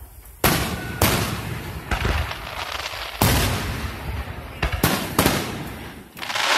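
Aerial fireworks shells bursting: about five sharp booms, each followed by a rumbling echo. Near the end a dense hissing rush swells up.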